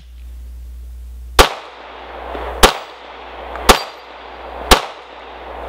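Glock 17 9mm pistol firing four shots about a second apart, the first about a second and a half in, each shot trailing a long echo.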